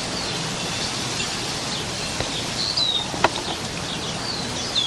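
Wild birds chirping, several short falling chirps in the second half, over a steady hiss of wind. A single sharp click about three seconds in.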